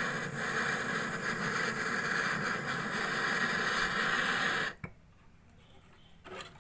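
Steady machine running with a hiss over a low hum, which cuts off abruptly about five seconds in. A single short click or knock follows near the end.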